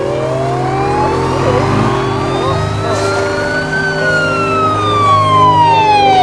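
Siren wailing in a slow cycle: the pitch rises for about four seconds, then falls again, over a steady low hum.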